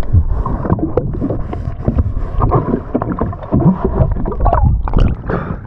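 Sea water sloshing and gurgling around a camera held at the waterline and dipping under the surface, sounding muffled and low, with irregular knocks and splashes.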